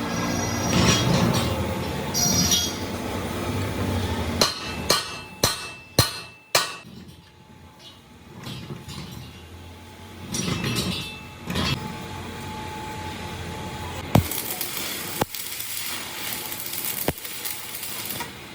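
Hammer blows on metal: a quick run of about six sharp strikes about five seconds in, then three spaced strikes near the end.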